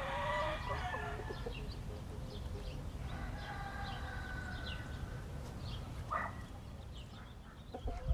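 Backyard chickens clucking and calling: a cluster of calls at the start, a longer drawn-out call a few seconds in, and another short call near the end, over a steady low rumble with scattered short high chirps.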